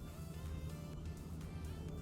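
Background music with a steady beat: plucked guitar-like notes over a steady bass.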